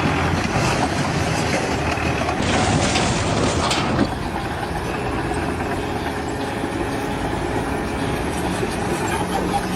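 A heavy engine or machine running steadily, with a burst of hissing that lasts about a second and a half and ends sharply about four seconds in.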